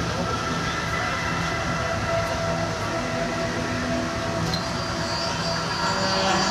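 Mirage Volcano eruption show: a steady rumble with many held tones running through it and no breaks.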